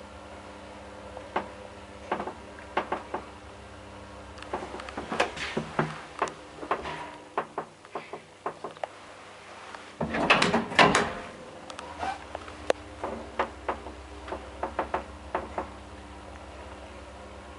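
Old freight elevator machinery: a run of sharp mechanical clicks and clacks over a steady electrical hum, with a loud clattering burst about ten seconds in as the low hum cuts back in. The uploader says this machine sounds very bad when the car starts and stops.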